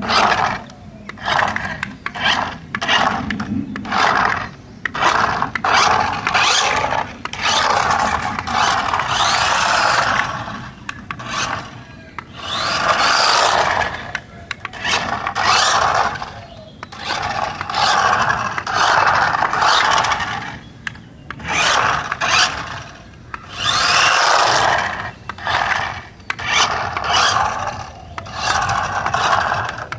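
Remote control toy car's small electric motor and plastic gears whirring with a grinding, rasping sound in repeated bursts of one to two seconds as it is driven on and off.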